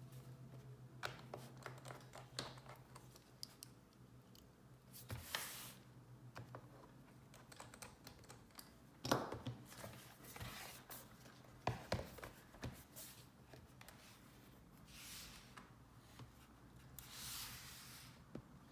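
Faint scattered clicks, taps and rustles of hands handling a laptop and small tools, with a couple of sharper knocks near the middle. A low hum stops about five seconds in.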